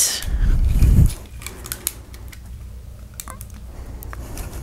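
A low, loud thud and rumble in the first second, then scattered small clicks and rustles as hands work rubber bands off a metal replica Graflex lightsaber hilt.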